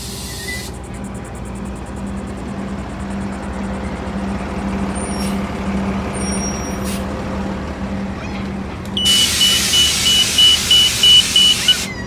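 Gillig Advantage low-floor transit bus running as it pulls up to the stop. About nine seconds in, a loud hiss of air starts as the bus kneels, with a rapid beeping alarm, and both stop just before the end.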